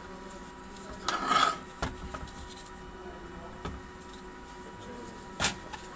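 Metal parts of a common rail high-pressure pump being worked apart and lifted off by hand. There is a short scraping rub about a second in, a few light clicks, and a sharp metal clack near the end.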